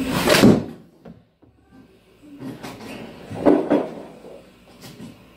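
Golf iron swung down and striking a ball off an artificial-turf hitting mat, a sharp loud hit about half a second in. Softer knocks follow a few seconds later, then a brief sharp click near the end.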